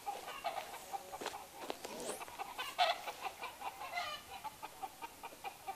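Chickens clucking in a string of short calls, loudest about three seconds in.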